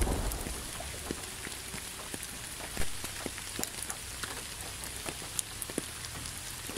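Steady light rain pattering, with many scattered drop ticks and one louder tap about three seconds in.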